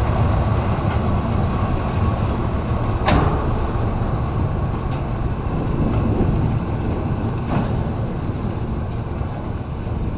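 Freight train cars rolling past on the rails: a steady, loud rumble with two sharp knocks, the second about four and a half seconds after the first, fading slightly toward the end.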